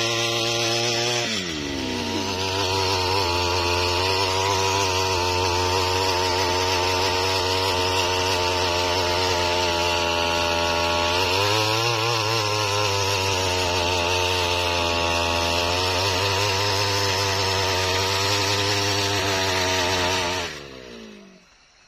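Brush-cutter engine running hard, driving a tiller attachment whose tines dig into soil. Its note drops about a second and a half in and dips and recovers about halfway through as it takes the load. Near the end the note falls and dies away.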